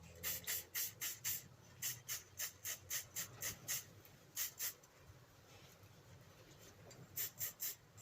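Runs of short rubbing or brushing strokes, about three to four a second, with pauses between the runs.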